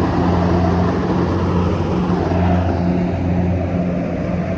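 Kubota DC70 rice combine harvester running steadily: a constant diesel engine drone with a dense mechanical noise over it.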